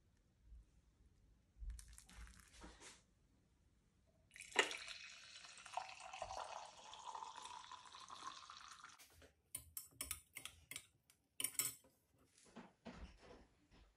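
Milky tea poured into a glass mug for about four and a half seconds, the sound rising slightly in pitch as the mug fills. Then a metal spoon clinks quickly and repeatedly against the glass as it stirs.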